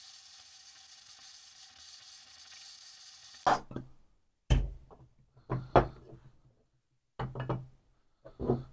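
A handheld gas torch flame hissing faintly and steadily for about three seconds. Then several separate knocks and clunks as the aluminium chainsaw crankcase half is turned over and set down on wooden blocks.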